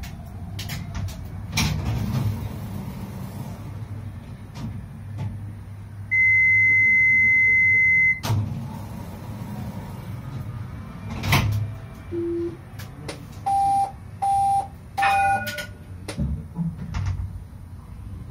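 A tram standing still, its cab humming low with scattered clicks. Electronic warning beeps sound in the cab: one steady high beep lasting about two seconds, then later a short low beep followed by three short beeps in quick succession.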